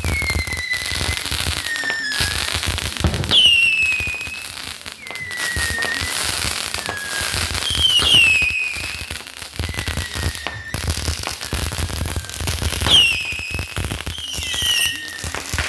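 Fireworks going off: steady dense crackling, with a high whistle that falls in pitch every second or two.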